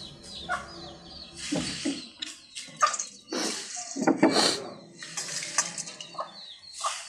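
Hilsa fish curry bubbling and spitting as it simmers in a wok, in irregular crackling bursts.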